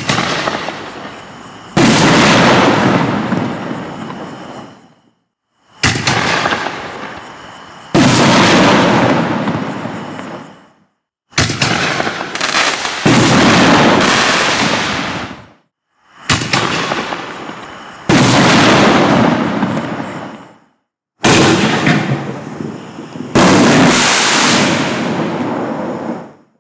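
Black Cat Neon Diablo 24 aerial firework shells fired one at a time, five in all. Each time, a launch thump is followed about two seconds later by the loud burst of the shell, which dies away over a few seconds. The shots are cut together with brief silences between them.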